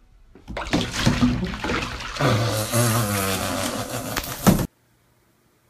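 Loud splashing and sloshing of bathwater as a cat gets into trouble at the edge of a filled bathtub, with a voice crying out over it for about a second near the middle; the sound cuts off suddenly near the end.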